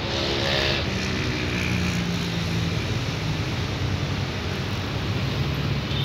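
A vehicle engine running steadily, a low hum, with a short hiss about half a second in.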